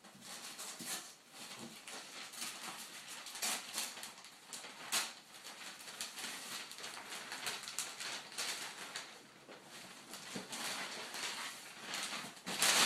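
Wrapping paper and a cardboard gift box being handled and opened, with irregular crinkling and rustling crackles.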